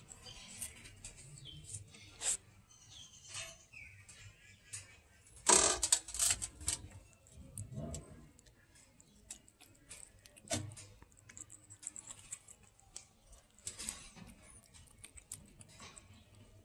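A cat chewing and eating fried fish off a paper plate: irregular small wet clicks and smacks, with a louder burst of noise about five and a half seconds in.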